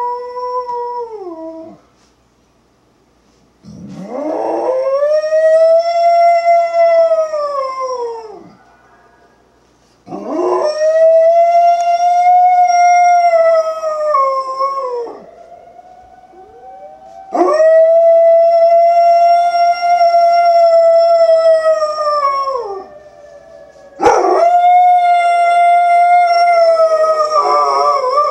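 Old English Sheepdog howling: a series of long, drawn-out howls, each about four to five seconds, rising at the start and sliding down at the end, with short pauses between them. The howling is set off by the weekly emergency broadcast system siren test.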